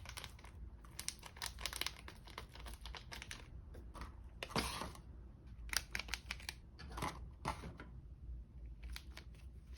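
Packaging of powdered strawberry milk being opened and handled: rapid small clicks and crinkling rustles, with a longer rasp about halfway through.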